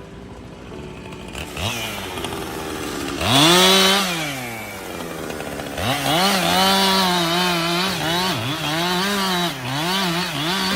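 Chainsaw engine revving: a short blip, then a rev up to high speed that falls back, then several seconds held near full throttle with the pitch dipping briefly now and then.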